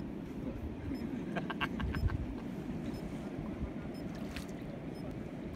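Steady low outdoor rumble with a short run of four or five high chirps about a second and a half in.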